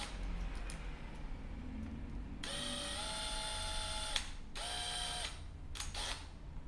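Cordless drill's electric motor whining in two short runs, the first about two seconds long and stepping up in pitch partway through, the second under a second.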